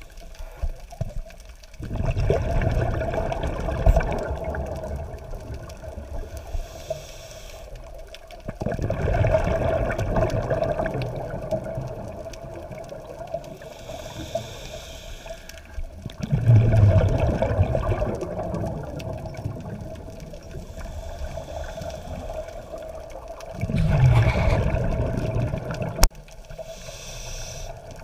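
Scuba diver's exhaled bubbles rushing and gurgling out of the regulator, heard underwater through the camera housing. It comes in four bursts several seconds apart, one per breath.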